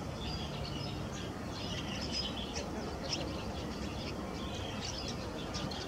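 Small birds chirping: many short, high calls overlapping throughout, over a steady low background noise.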